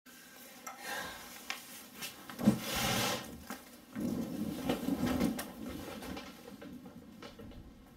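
A person getting up and moving about: small clicks, a sharp knock about two and a half seconds in followed by a brief rustle of clothing, then more bumps and shuffling that die down near the end.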